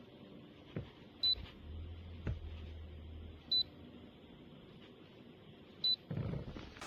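Three short, high electronic beeps a couple of seconds apart from a humidifier's control panel, with faint clicks and a brief low hum between them.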